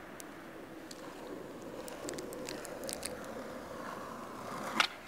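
Skateboard wheels rolling over rough concrete, a steady gritty noise with small ticks of grit, then one sharp clack of the board near the end.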